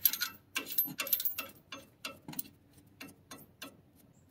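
Light metal clicks and clinks, about three a second, as a nut and washers are turned by hand on a long threaded bolt through a leaf spring shackle bushing. The clicks are louder for the first second and a half, then fainter.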